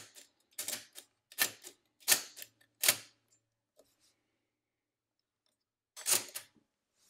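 Lindström Record mechanical calculator's keyboard-to-step-drum mechanism clacking as it is worked: five sharp clacks at an even pace, a pause, then one more near the end.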